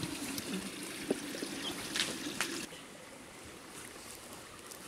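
Mountain brook water running in a steady rush, with a few sharp snaps and clicks of footsteps through wet brush and deadfall; the rush drops lower a little past halfway.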